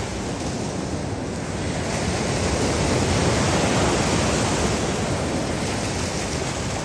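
Ocean waves breaking and washing up the shore: a steady rush of surf that swells about two seconds in as a wave breaks, then eases toward the end.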